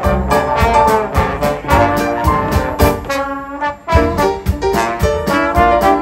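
Live trombone section playing a jazzy instrumental passage together, the notes moving in stacked harmony over a steady beat, with a brief drop in loudness a little past halfway.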